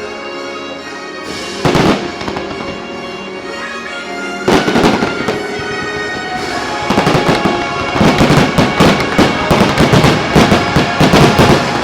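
Fireworks bursting over the show's music soundtrack: a single loud bang about two seconds in and another near the middle, then a fast barrage of bangs through the second half as the finale.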